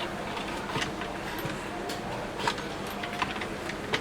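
Scattered light clicks and taps of smart-lock parts and hardware being handled and fitted on a door, over a faint steady low hum.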